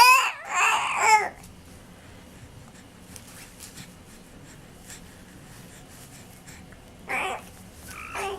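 A voice making funny noises: high-pitched, wavering calls. Two come close together at the start, with a short one about seven seconds in and another, falling in pitch, beginning near the end.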